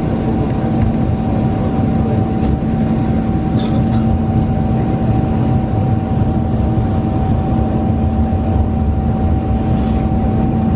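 Interior running noise of a single-car diesel railcar: a steady low rumble of engine and wheels on the rails, with a constant hum, as the car slows toward its next stop.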